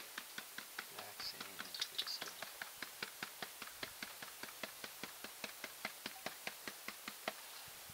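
Green plastic gold pan being tapped and shaken in a quick, even rhythm, about five light knocks a second, to settle the heavy black sand in the wet concentrate. The knocking stops near the end.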